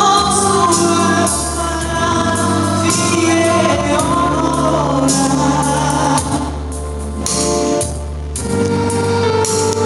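A woman singing a Christian song into a microphone over amplified instrumental accompaniment. Her voice stops near the end, leaving the accompaniment playing on.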